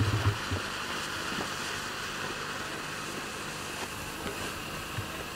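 A lit firework on the ground hissing steadily as it burns, fading slowly, with a few faint crackles.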